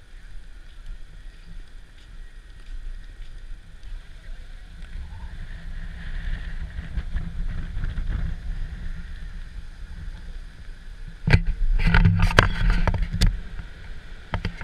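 Muffled low rumble of wind and movement on an action camera's microphone, rising and falling, broken about eleven seconds in by a cluster of loud knocks and bumps from the camera being handled.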